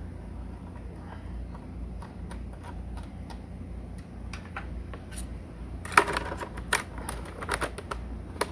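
Light clicks and taps of hands working on a PlayStation 4's hard drive bay, then a cluster of louder sharp clicks and rattles about six seconds in, as the replacement drive is fitted into the console.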